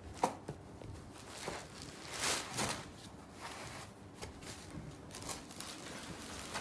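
A folded saree being unfolded and spread out by hand: cloth rustling unevenly, with a sharp tap just after the start.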